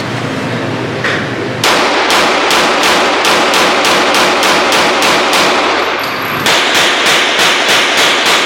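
Rapid gunfire at an evenly paced three to four shots a second, starting about two seconds in and running on without a break.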